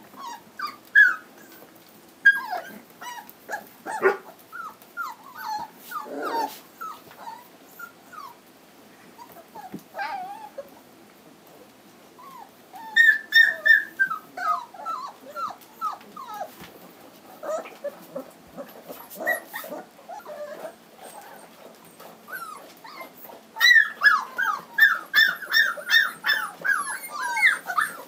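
Three-week-old Standard Poodle puppies whimpering and squeaking: many short, high, falling cries, with dense runs of rapid squeals about halfway through and again near the end.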